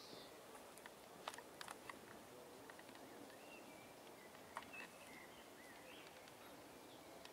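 Quiet forest ambience with faint, distant bird chirps between about three and five and a half seconds in, and a few soft clicks, mostly in the first two seconds.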